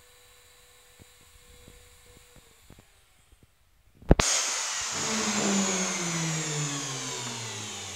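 Skil hand router's motor spinning down after being switched off. About four seconds in there is a sharp click, then a loud whir whose pitch falls steadily as it fades. Before that there is only a faint hum with a few light ticks.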